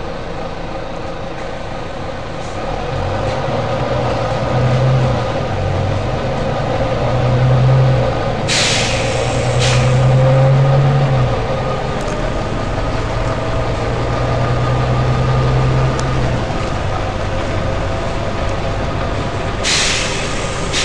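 Volvo B9TL double-decker bus running, its low engine note rising and falling in steps for much of the time, with sharp hisses of compressed air from its air system: two short ones in quick succession about halfway through and another near the end.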